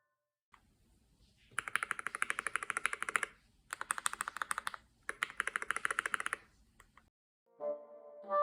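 Keychron K8 Pro mechanical keyboard being typed on quickly in three bursts of rapid key clicks, each lasting a second or two with short pauses between.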